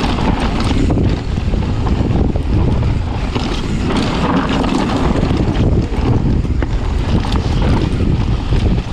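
Wind buffeting a helmet- or chest-mounted GoPro microphone as a mountain bike descends a rough dirt trail at speed, with a steady rumble of tyres over the ground and scattered knocks and rattles from the bike.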